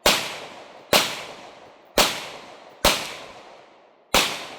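Five gunshots fired about a second apart, each a sharp crack that dies away before the next.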